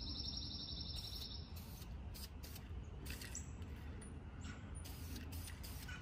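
Aerosol spray paint hissing in a series of short bursts. A bird trills at a high pitch during the first second and a half.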